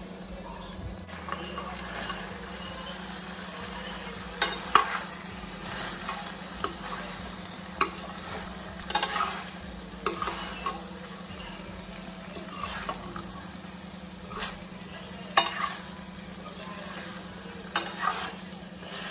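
Chicken frying in its own released oil in a pan over a low flame, stirred with a utensil: a soft sizzle under irregular scrapes and clinks of the utensil against the pan.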